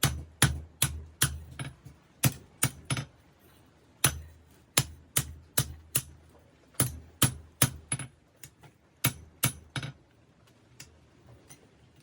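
Hammer blows on hot 5160 steel at an anvil while forging a knife blade: sharp ringing strikes about two or three a second in short runs with brief pauses. They thin to lighter taps and stop near the end.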